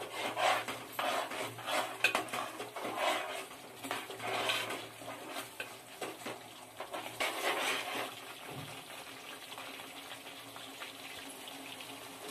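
Metal spoon stirring and scraping a thick masala gravy in a pot, in repeated strokes about once a second, while the ground paste fries until its raw smell goes. The stirring stops about eight seconds in.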